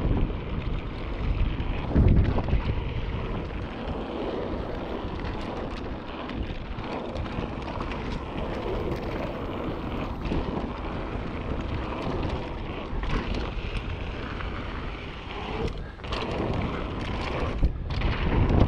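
Wind buffeting the action camera's microphone over the noise of mountain bike tyres rolling fast on a dry gravel trail, with rattles and knocks from the bike over bumps. The loudest thumps come about two seconds in and again near the end.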